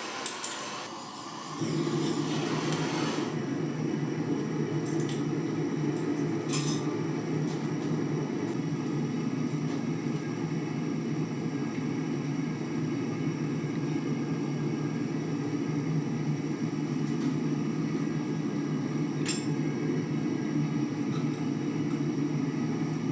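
Gas forge: gas hissing, then about a second and a half in the burner lights and runs with a steady low rumble. A few light metallic clicks.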